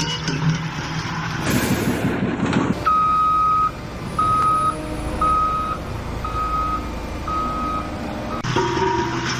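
Vehicle reversing alarm beeping five times at a steady pitch, the first beep longer and the rest about once a second. A short burst of noise comes before the beeps.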